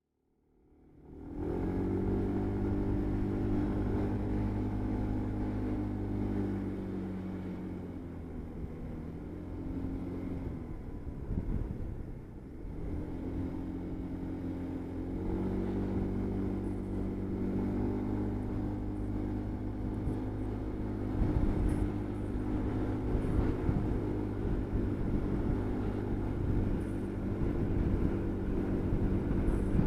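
Motorcycle engine running steadily while riding, with wind and road noise; the engine note drops off about eleven seconds in, then picks up again a couple of seconds later.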